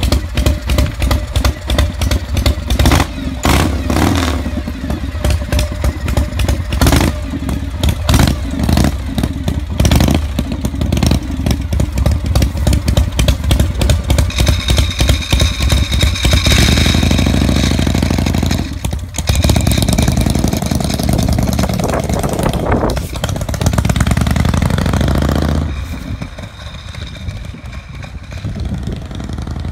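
A 93-cubic-inch S&S Panhead V-twin chopper engine runs with an uneven, pulsing beat and blips of the throttle. About halfway through it settles into a steadier, harder run as the bike pulls away, breaking off briefly twice. It fades near the end as the motorcycle rides off.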